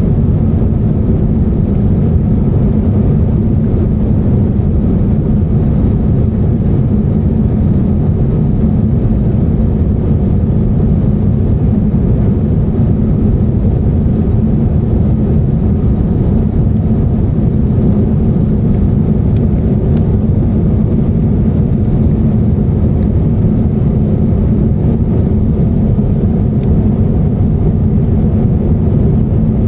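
Steady in-flight cabin noise of an Airbus A350-900 with Rolls-Royce Trent XWB engines: a continuous low rumble of engine and airflow, with a few faint light clicks above it.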